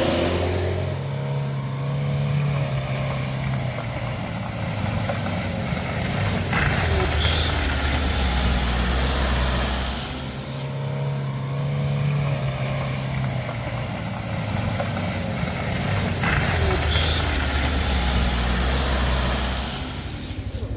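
Heavy vehicle's diesel engine pulling up a steep climb: a steady low drone with road noise around it.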